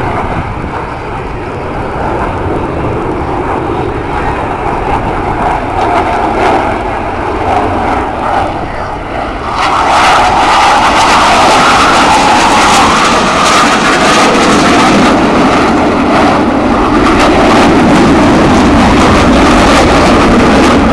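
Jet noise from a US Navy Blue Angels F/A-18 Hornet's twin turbofan engines as it flies past in a display. The roar grows sharply louder about ten seconds in and stays loud.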